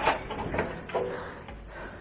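A few knocks and clanks from a metal garden swing frame being handled, with a short metallic ring about a second in.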